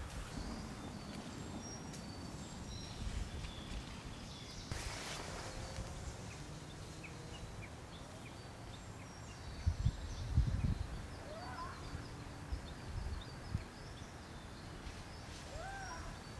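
Small birds chirping in the background as many short high calls. Two short rising-and-falling calls come past the middle and near the end, and a few low thumps come about ten seconds in.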